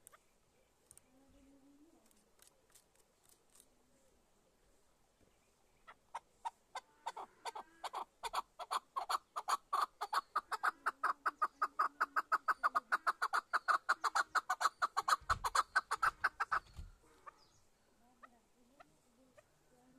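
Chukar partridge giving its rally call: a long run of short, rapid chuck notes that begins sparsely about six seconds in, quickens and grows louder to about six notes a second, then stops abruptly.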